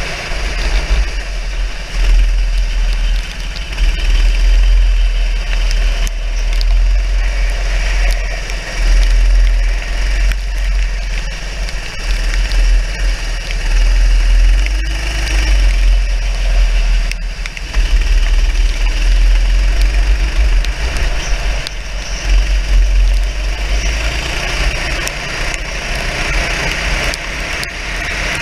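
Racing kart engine heard from on board, rising and falling as the throttle is opened and eased through the corners, with wind buffeting the camera microphone.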